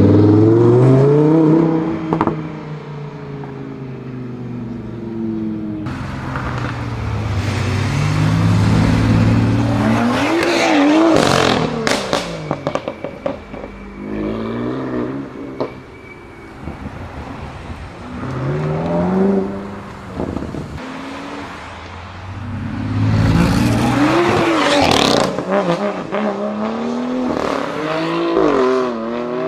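BMW M5 F90's twin-turbo 4.4-litre V8, tuned to Stage 2, revving up and down through several accelerations. There are clusters of sharp exhaust crackles and pops about ten seconds in and again in the last few seconds.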